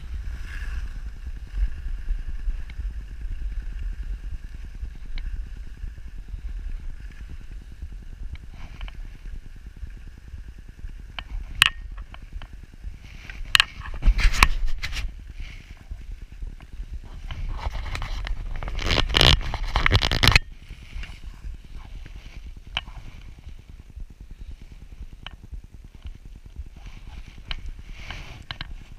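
Skis scraping over packed snow, with wind rumbling on the microphone. Sharp clicks come now and then, and the scraping grows loud for a few seconds before stopping abruptly about twenty seconds in.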